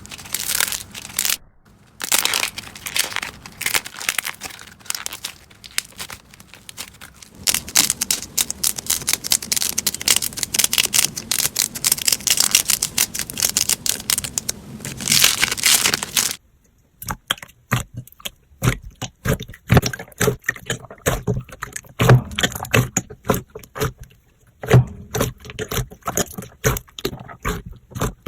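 Slime being squeezed and pressed by hand, crackling with dense runs of small pops and clicks. About sixteen seconds in it breaks off and another slime starts, its clicks sparser and more spaced out.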